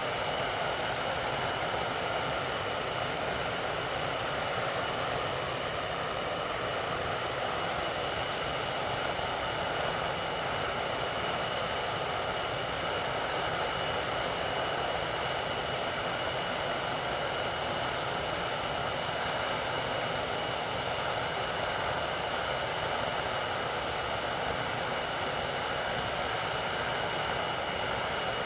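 English Electric Lightning's two stacked Rolls-Royce Avon turbojets running steadily on the ground, the aircraft standing still. A constant rushing roar with a high whine held on one pitch.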